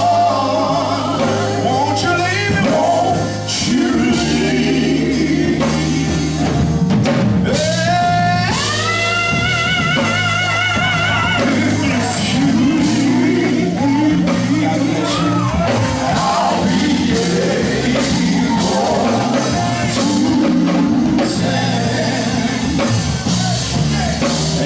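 Gospel quartet singing with live band accompaniment. A lead voice holds a long note with vibrato about eight seconds in.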